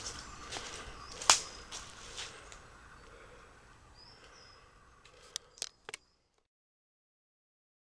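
Footsteps on a leaf-littered earth path, about two a second, dying away after two or three seconds. A short bird chirp follows, then three sharp clicks, and the sound cuts to dead silence about six seconds in.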